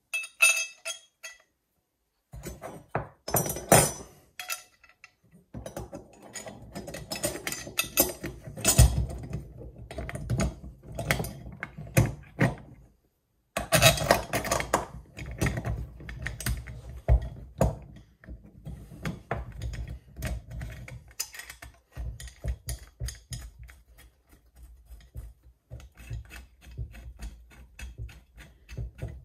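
Chainsaw mill parts being assembled by hand: irregular clinks and clicks of steel bolts and nuts against the aluminium frame, with occasional dull thunks as pieces are set down, in bursts with a couple of short pauses.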